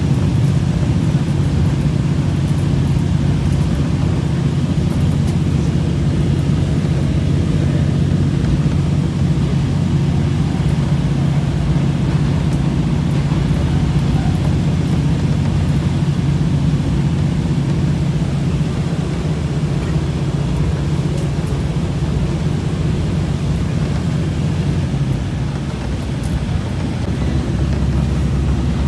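Inside a KiHa 40 series diesel railcar under way: the diesel engine's steady drone under power, mixed with running noise. Near the end the engine note drops to a lower pitch.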